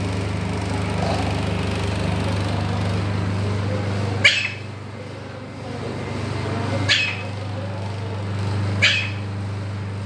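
Three short, sharp animal calls, about four, seven and nine seconds in, over a steady low hum.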